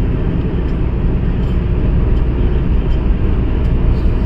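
Steady road and engine rumble of a moving car, heard from inside the cabin, deepest at the low end.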